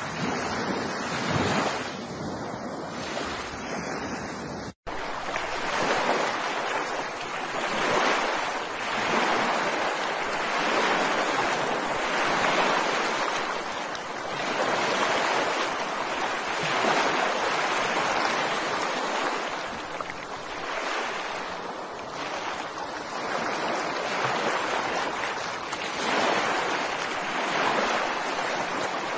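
Ocean surf: waves breaking and washing in, swelling and falling back every few seconds. There is a split-second dropout about five seconds in.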